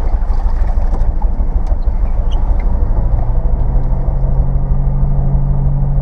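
First-generation Subaru Forester's flat-four engine running roughly on only two cylinders after a coil-pack failure, a steady low rumble. About three seconds in, a steady droning hum joins it and holds.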